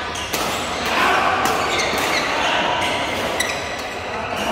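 Badminton rackets striking shuttlecocks: several short, sharp hits a second or so apart, ringing in a large hall.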